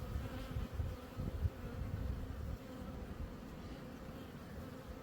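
Honey bee colony (European dark bees) buzzing steadily with a constant hum while the hive is open for a frame inspection. A low rumble sits under the hum for the first two and a half seconds, then eases off.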